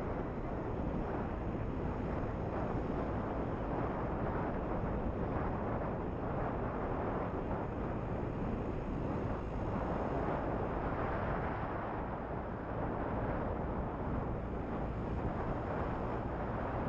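Steady wind rushing over the microphone of a camera on a moving motorbike, mixed with the bike's running noise and tyre rumble.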